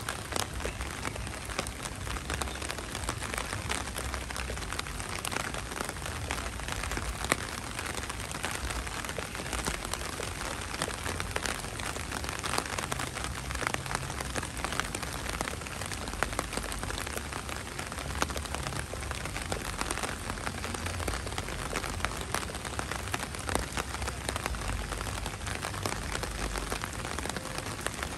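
Heavy rain falling steadily, with many individual drops striking close by in sharp ticks over a low rumble.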